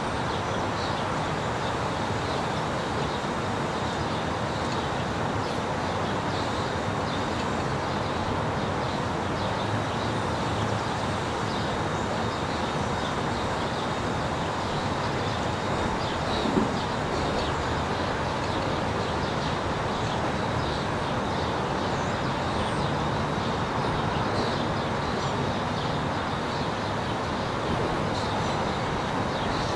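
Steady road noise of a moving car, tyres on the road and wind, with a single brief knock about sixteen seconds in.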